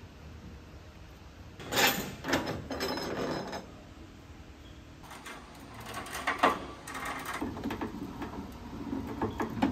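Knocks and rattling clatter of metal equipment as the old air handler is lowered on a material lift. There are sharp knocks about two seconds in and again past six seconds, between stretches of rattling.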